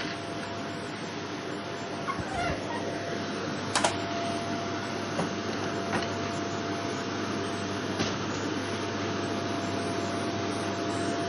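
Vacuum cleaner running steadily on a wooden floor: a constant whine over rushing air, with a few sharp clicks, the loudest about four seconds in.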